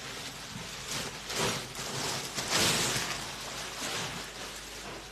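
Rustling of a shiny suit fabric as it is gathered up and pulled off a counter: soft swishes over a steady hiss, swelling about one and a half seconds in and again near the middle.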